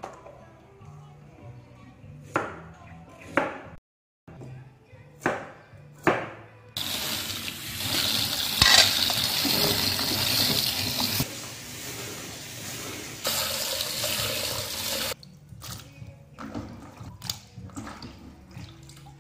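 Kitchen tap running into a plastic basin of cut bamboo shoots as they are rinsed by hand, a steady hiss for about eight seconds in the middle. Before it, a few sharp knife chops on a wooden cutting board; after it, small splashes of hands working in the water. Soft background music runs underneath.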